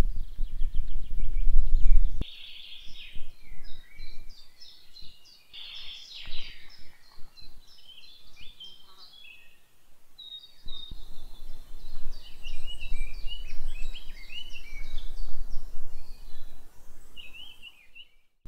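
Several birds singing in woodland, a busy mix of short chirps and trills, over a low rumble that is heavier in the first two seconds and again from about eleven seconds in.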